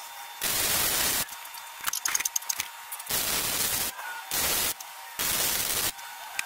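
Chicago Electric 125-amp flux-core wire welder laying short tack welds on steel bed-frame angle: four bursts of crackling arc, each under a second long, with a quick run of sharp pops about two seconds in.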